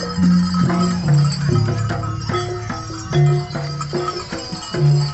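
Live jaranan barongan music: a stepped melody of pitched notes over long held low notes, with sharp percussion strokes throughout.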